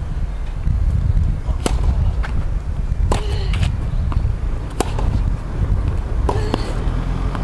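Tennis rally: racket strings striking the ball and the ball bouncing on the hard court, a series of sharp pops about a second apart, over a steady low rumble.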